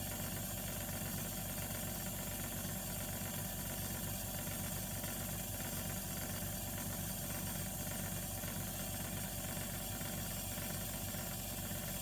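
Aquatec CDP 8800 diaphragm booster pump running with a steady hum, pumping against a closed outlet as pressure builds toward its cutoff switch.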